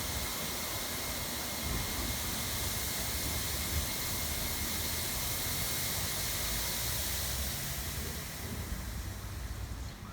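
High-pressure water jets of a touchless car wash machine spraying with a steady hiss over a low machine hum, tapering off near the end.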